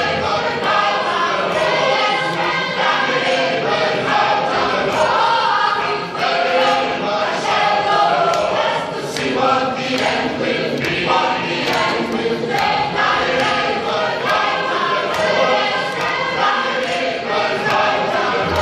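Gospel choir singing, many voices together.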